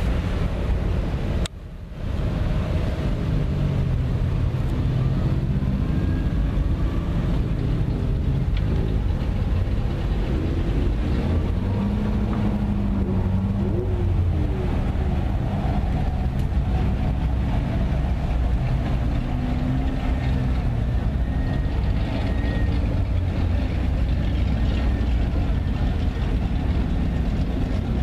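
A procession of Mazda MX-5 Miatas and other small roadsters driving past at slow parade pace: many engines running at low revs together, with engine notes rising and falling as cars go by.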